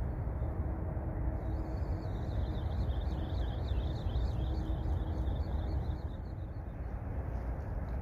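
Steady low outdoor rumble, with a faint, wavering high chirping from about a second and a half in until near the end.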